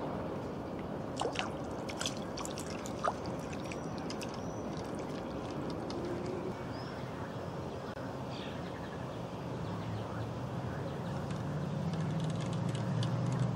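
Open-air pond ambience: a steady hiss with a few faint sharp ticks in the first three seconds and some faint high chirps. A low rumble builds over the last few seconds.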